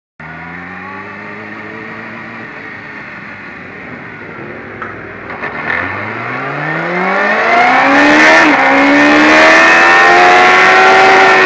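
Sport motorcycle engine heard from a camera on the bike's fairing. It runs low and steady at first, with a few light clicks about five seconds in. It then pulls away hard, its pitch climbing with a short dip at a gear change around eight seconds, and holds near the top of its climb towards the end.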